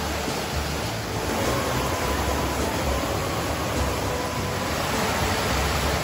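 Mountain river rushing over boulders and small cascades: a steady hiss of white water.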